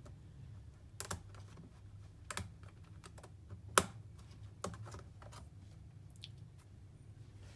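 Scattered small clicks and taps as a metal pick works small parts loose from a laptop's plastic palmrest (C-panel); one sharp click a little before four seconds is the loudest. A low steady hum runs underneath.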